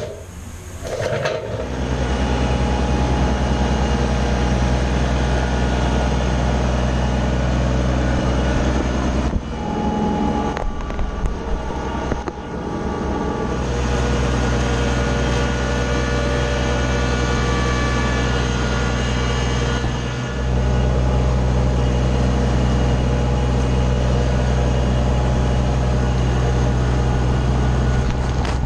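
Kubota BX25 sub-compact tractor's small diesel engine running steadily, with brief dips about a third of the way through.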